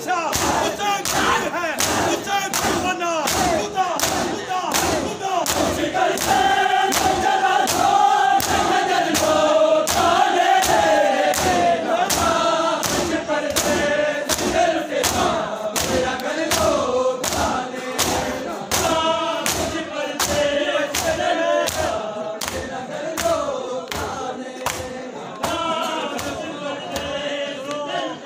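Matam: a crowd of Shia mourners beating their bare chests with their palms in unison, about two heavy slaps a second, while men chant a noha lament together.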